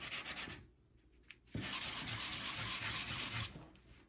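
Sandpaper rubbed by hand in quick back-and-forth strokes over the hose neck of a thermostat housing, in two bouts with a short pause between. It is smoothing off rough, pitted corrosion built up over the years so the radiator hose will seal.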